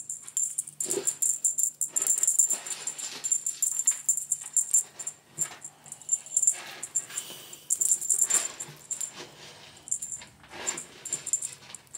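A jingling cat toy being shaken and waved, rattling and jingling in quick, irregular bursts with a steady high bell ring.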